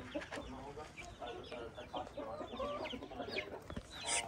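Flock of chickens clucking and calling, many short calls overlapping, some of them quick high notes that fall in pitch.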